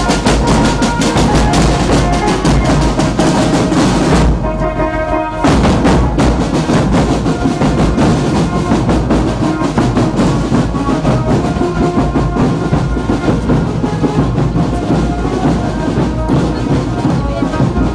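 Marching drum band playing snare drums and bass drums in a steady beat, with a melody of held notes over them; the drums stop for about a second a little after four seconds in.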